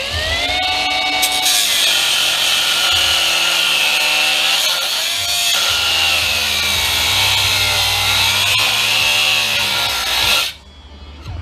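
A battery-powered cutting tool's motor spins up with a rising whine. It then bites into the aluminum housing with a loud, hissing grind, its pitch sagging and recovering under load, and it stops abruptly near the end.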